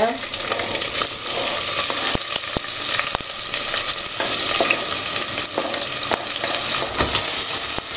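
Chopped onion and garlic sizzling steadily in hot oil in a stainless steel pot as they are sautéed, with a few sharp clicks around two to three seconds in and again near the end.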